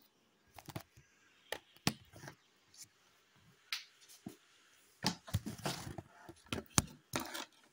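Scattered short clicks and knocks, with a denser run of them from about five seconds in, and near silence between them.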